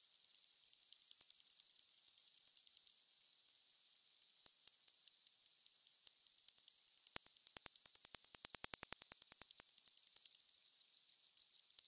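Narwhal echolocation clicks: runs of sharp, evenly spaced clicks, about eight a second, over a steady high hiss, pausing briefly about three seconds in and again near the end.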